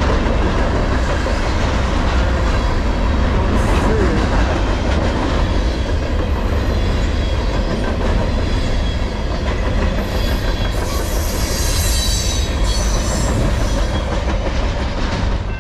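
Freight train of container flatcars rolling past close by: a steady rumble and rattle of steel wheels on the rails. A thin, high wheel squeal rises over it from about two-thirds of the way through.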